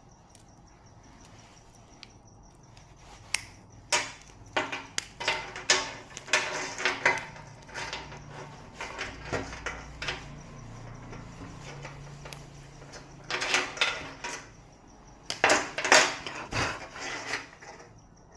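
Hard objects being handled and set down during repair work: irregular bunches of knocks, clatter and scraping, with a quieter stretch in the middle.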